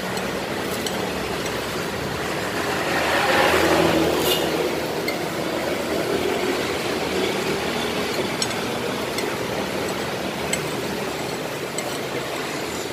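Street traffic hum, with one vehicle passing about three to four seconds in, swelling and fading. A few light clinks of a metal spoon against a ceramic plate.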